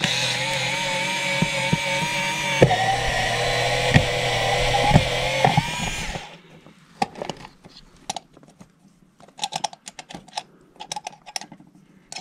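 Red Milwaukee cordless screwdriver running steadily for about six seconds, backing screws out of a plastic electrical box cover, then stopping suddenly. Light clicks and taps follow as the screws and cover are handled.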